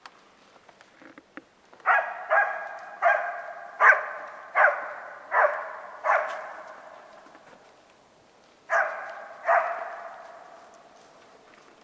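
A dog barking in a quick run of seven loud barks, then two more after a short pause, each bark trailing off among the trees. This fits a hound giving tongue on the deer during the drive.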